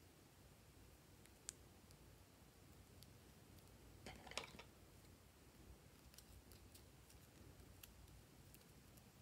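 Near silence, with a few faint clicks from a plastic piping bag being handled and a brief crackle about four seconds in.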